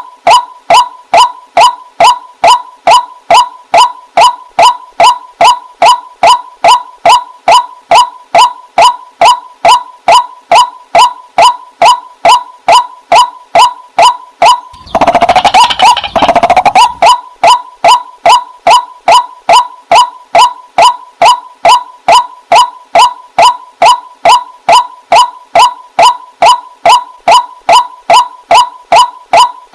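Water hen calling: a short, sharp note repeated over and over at about two calls a second. About halfway through, a brief noisier burst of calling breaks the rhythm.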